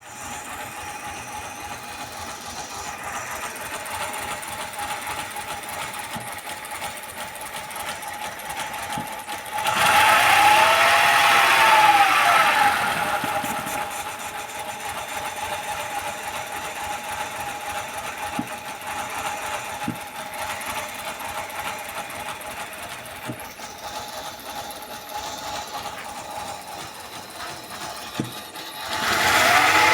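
Mercedes-Benz W211 engine idling roughly with a misfire. It is revved up and back down briefly about ten seconds in and again near the end.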